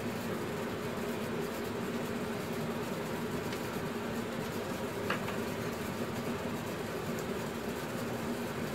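A steady mechanical hum, even in pitch and level throughout, with a single light click about five seconds in.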